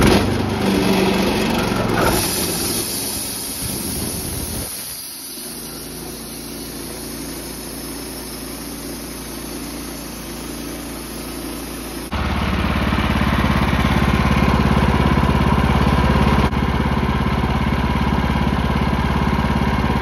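Wood-Mizer LT15 band sawmill running, its gasoline engine driving the band blade through an alder log as it saws off a slab. The steady engine-and-blade sound drops in level around five seconds in and jumps back up sharply about twelve seconds in.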